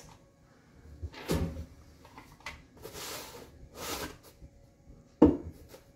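Kitchenware being handled and set down on a wooden cabinet shelf: a few scattered knocks and clinks of glass items and short scrapes of things slid along the shelf, with one sharp knock, the loudest, near the end.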